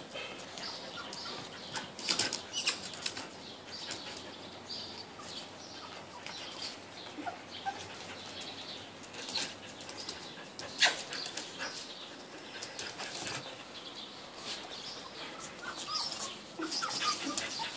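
Puppies' paws and claws pattering and clicking on terracotta floor tiles as they scamper and play, in scattered irregular taps, with one sharper knock about eleven seconds in. Faint high chirps come and go.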